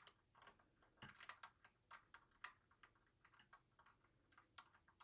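Faint, irregular small clicks and taps as an M.2 SSD in a copper heat-spreader sleeve is handled and pressed into its slot inside a mini PC.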